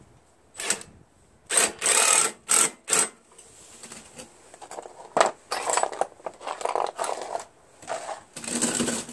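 Cordless impact driver running in several short bursts, hammering as it drives small screws into a snowblower engine's shroud cover. The loudest bursts come about two seconds in and near the end.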